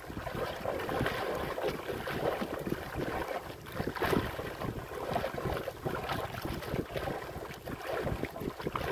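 Wind buffeting the microphone over choppy sea, with waves splashing against the hull of a small wooden outrigger boat.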